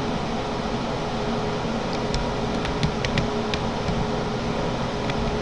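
Steady fan hum and hiss with a constant low tone, and a few light clicks about two to three and a half seconds in.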